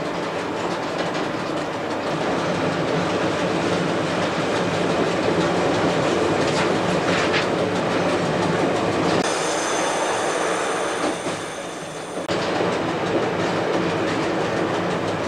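SAR 'Bluebird' broad-gauge diesel railcar running steadily along the track, heard from on board, with the wheels clicking over the rail joints. Past the middle the running noise thins for about three seconds and a faint high whine comes in.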